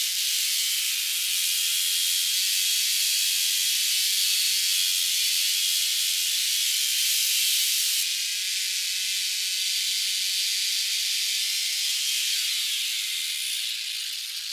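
Stihl two-stroke chainsaw running hard as it cuts into sea ice, its engine pitch wavering under load and rising briefly about twelve seconds in.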